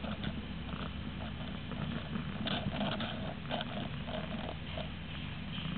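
Cat purring close to the microphone, a steady low rumble, with small scattered ticks and patters over it.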